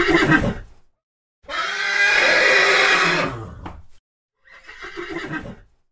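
Horse whinnying three times in a row, the middle whinny the longest, each with a falling pitch.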